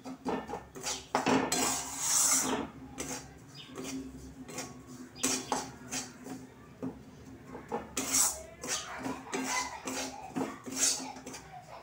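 Metal spatula scraping and knocking against a steel kadai while stirring a dry, crumbly lentil dhoka mix frying in a little oil, in irregular strokes, some louder and harsher than others.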